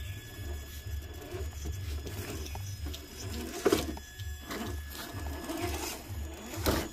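Axial SCX10 III Jeep Wrangler JL RC rock crawler's electric motor and geartrain whirring as it crawls over stones, with a sharp knock about halfway and another near the end as the tyres and chassis hit the rocks.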